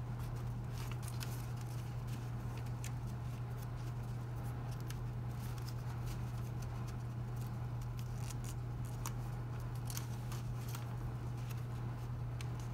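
Folded paper units of an origami ninja star crinkling and crackling as fingers push and tuck flaps into one another, with scattered light clicks throughout, over a steady low hum.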